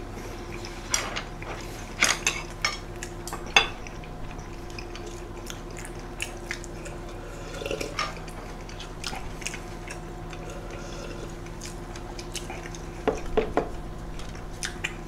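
Quiet table sounds of eating big burgers by hand: scattered light clicks and taps of food, hands and plates, busiest in the first few seconds and again near the end, over a steady low hum.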